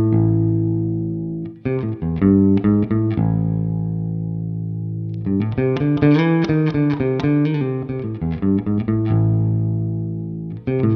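Electric guitar played through an optical compressor pedal: quick bursts of picked notes alternate with chords left to ring out for a couple of seconds each.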